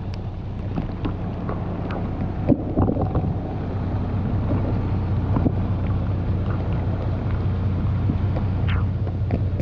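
Water jets from a homemade boat-trailer washdown system spraying up onto the trailer's underside: a steady hiss and spatter with scattered splashes. A steady low hum runs underneath.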